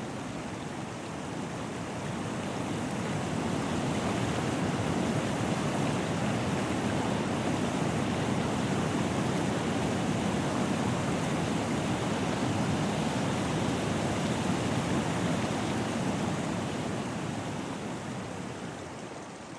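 Steady rush of flowing water from a stream, swelling in over the first few seconds and fading out near the end.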